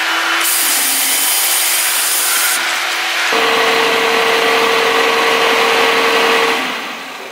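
Electric hand dryer blowing: a loud, steady rush of air with a hum that steps higher about three seconds in, then dies down near the end.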